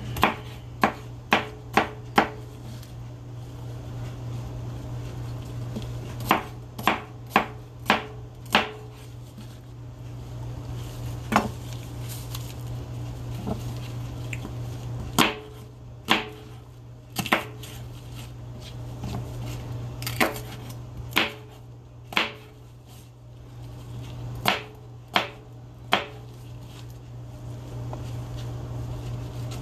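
Chef's knife chopping bell peppers on a plastic cutting board: sharp knocks of the blade in short runs of a few strokes, with pauses between runs. A steady low hum runs underneath.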